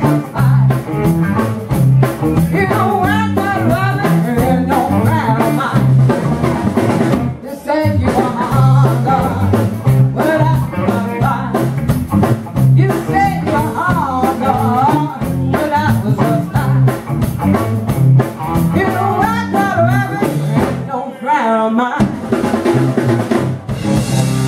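Live rock'n'roll band playing, the drum kit keeping a steady beat under the bass, with a woman singing lead into a handheld microphone. The band drops out briefly near the end.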